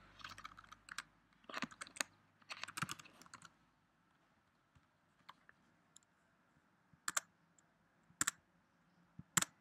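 Typing on a computer keyboard: quick runs of keystrokes in the first few seconds, a lull with only faint taps, then three loud single clicks about a second apart near the end.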